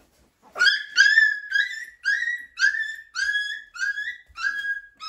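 A young livestock guardian puppy whining, a steady run of about ten high-pitched cries, roughly two a second, each rising quickly then holding its pitch.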